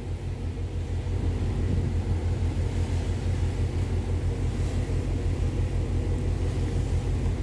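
Steady low rumble and hum of a ship's engines and machinery, even and unchanging.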